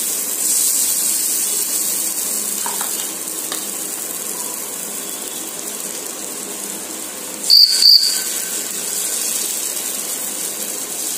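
Steady high-pitched hiss from the hot griddle (tawa) over the gas burner as batter is poured and cooks. About seven and a half seconds in, two sharp metallic clinks with a brief ring, the steel ladle striking metal.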